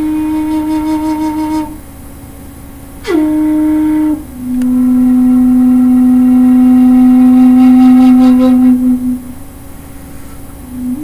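Bamboo xiao, an end-blown Chinese flute in C, playing a slow pentatonic minor melody of long held notes with vibrato. The notes are separated by two short pauses, and one note starts with a quick downward swoop about three seconds in.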